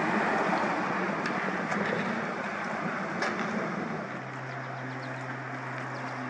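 Pickup truck towing a float plane on a trailer rolls past, with tyre and road noise and the trailer rattling and clicking. About four seconds in this gives way to a quieter steady low hum.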